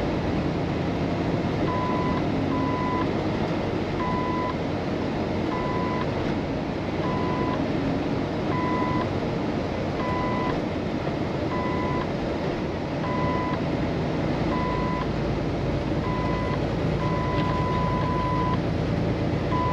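Inside the cab of a Kenworth T680 semi truck, the Paccar MX13 diesel engine and road noise make a steady drone. Over it an electronic warning beep sounds about every second and a half, starting about two seconds in, and the last two beeps near the end are held longer.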